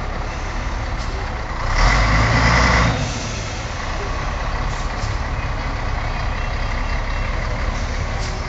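MAN off-road truck's diesel engine running as the truck moves slowly forward, growing much louder for about a second around two seconds in.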